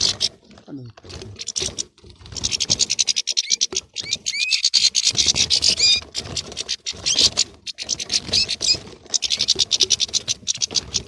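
European goldfinches twittering and squabbling in numbers: a dense run of rapid, high chattering calls with short rising notes, broken by a few brief pauses.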